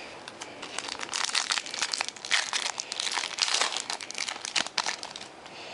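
Foil wrapper of a baseball card pack crinkling as it is torn open and handled, in a run of crackles that stops about five seconds in.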